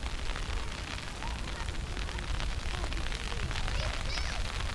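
Wind buffeting the microphone: a steady low rumble under an even hiss.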